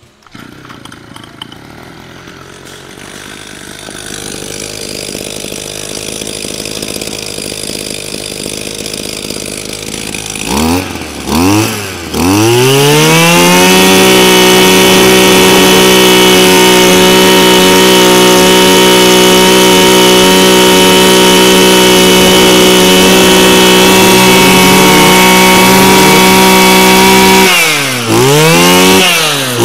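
Mitsubishi TL26 brush cutter's 26 cc two-stroke engine on a test run. It idles quietly for about ten seconds and is revved twice. It is then held at full throttle as a steady high-pitched whine for about fifteen seconds, and near the end the throttle is released and blipped up and down again.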